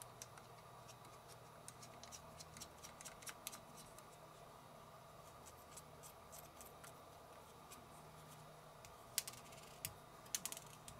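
Faint light clicks and taps of small metal and plastic parts being handled and fitted into a Daiwa Steez SV TWS baitcasting reel's frame during reassembly, over a faint steady hum. A few sharper clicks come near the end.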